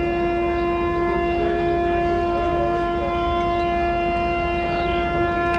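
Electric locomotive's air horn sounding one long, unbroken warning blast at a steady pitch, a chord of several tones, over a low rumble.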